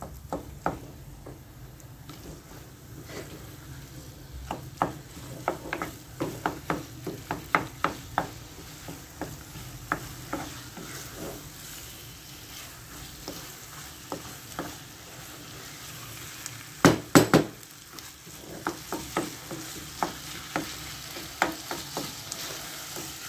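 Minced meat (kefta) and chopped onion frying in a coated pot, stirred and broken up with a wooden spoon as it browns: a steady low sizzle under repeated scrapes and knocks of the spoon against the pot, with a louder cluster of knocks about two-thirds of the way through.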